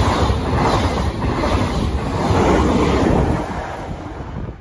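SBB passenger coaches running past close by, their wheels rumbling on the rails in repeated swells, with wind buffeting the microphone. The noise fades near the end.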